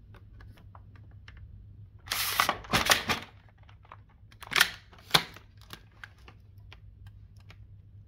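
Plastic clicks and clunks of a Dyson DC50 upright vacuum being handled, with its motor not running. About two seconds in comes a louder clattering rattle lasting about a second, then two sharp clacks a little over half a second apart, with lighter ticks between.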